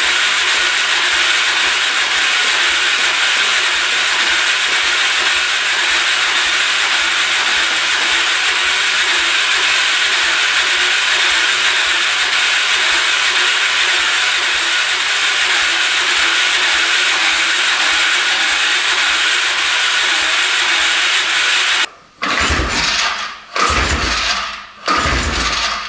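2005 Can-Am Outlander 400 Max's electric starter cranking the single-cylinder engine steadily for about twenty seconds without it catching, a sign of the low compression the owner suspects. The cranking stops suddenly and is followed by a few short knocks and rubs.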